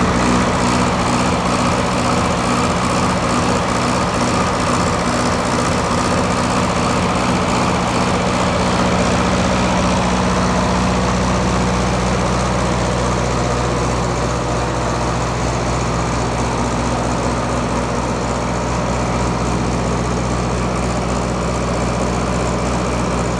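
FG Wilson 40 kW diesel generator set, its Perkins four-cylinder diesel engine running steadily at an even, unchanging speed.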